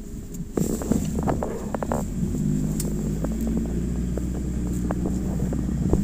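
Off-road vehicle's engine running as it drives, growing louder about half a second in, with scattered knocks and rattles from the body.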